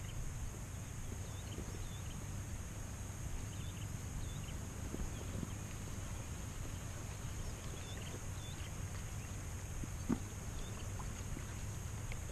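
Wind rumbling on the microphone in open country, under a steady high-pitched whine and a few faint chirps. A single short click comes about ten seconds in.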